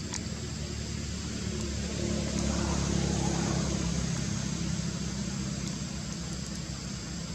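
A motor vehicle's engine running, a steady low rumble that swells about two to three seconds in, as if passing, then eases off.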